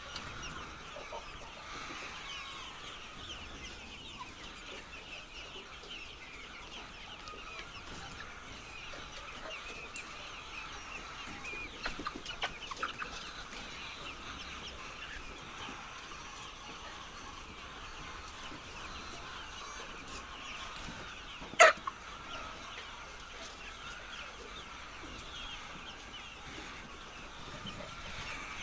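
A large flock of laying hens clucking steadily, many overlapping calls at once. About two-thirds of the way through, one sharp, loud sound stands out briefly above the flock.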